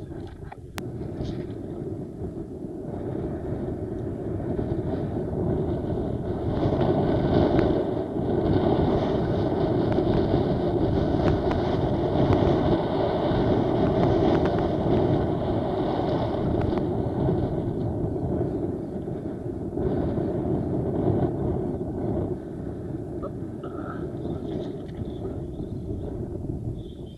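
Wind rushing and buffeting on the camera microphone over choppy sea water: a steady noise that builds over the first few seconds, is strongest in the middle and eases off near the end.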